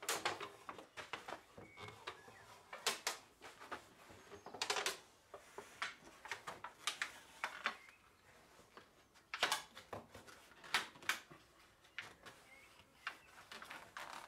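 Thin sheet metal being bent and pressed over the wooden edge of a hive lid by hand: irregular sharp clicks and metallic knocks, a dozen or so scattered through.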